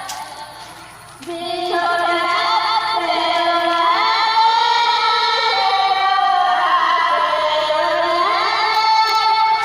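A woman singing a melody in long, held notes that glide between pitches, starting about a second in after a short lull.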